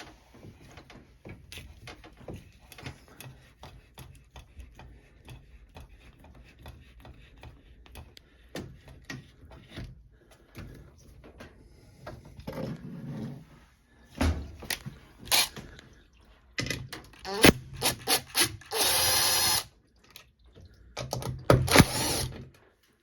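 Hand work with pliers on the hose clamps and hoses of a washing machine's water inlet valve: a long run of light clicks and taps, then louder metal clanks. About two-thirds of the way through comes a steady scraping hiss lasting about a second, and another scraping stretch comes near the end.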